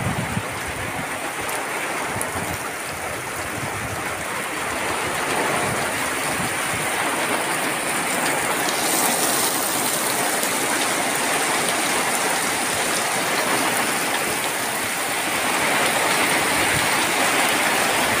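Heavy rain falling steadily on rice paddies and a flooded irrigation channel: a continuous hiss of drops on water and plants. It grows a little heavier about halfway through.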